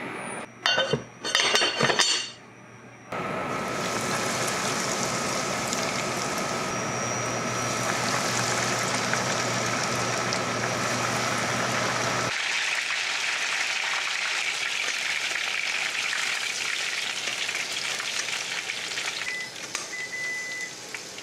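Hot oil sizzling steadily in a pot as breaded pieces deep-fry, after a few clinks of kitchen utensils against the pot at the start.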